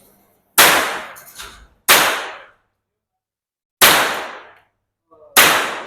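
Four single shots from a Smith & Wesson M&P15-22 semi-automatic .22 rimfire rifle, fired slowly at irregular gaps of one and a half to two seconds. Each crack dies away over about half a second.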